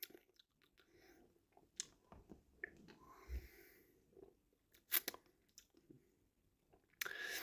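Faint mouth sounds of someone tasting and swallowing a sip of a drink, with a few small clicks and one sharper click about five seconds in.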